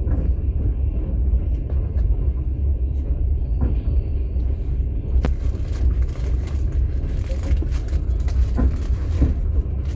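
Passenger train carriage in motion, heard from inside: a steady low rumble of the running train, with scattered knocks and rattles that come more often from about halfway through.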